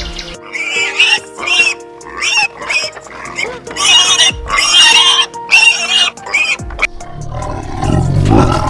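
An animal's high-pitched calls, about eight in quick succession, over steady background music. A deep roar starts near the end.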